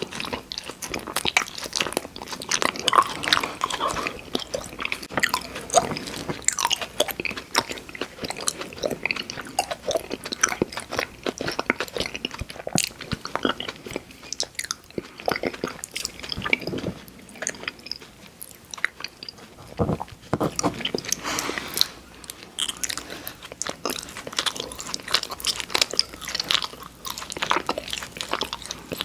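Close-miked biting and chewing of candy, with irregular crunching and sticky mouth sounds.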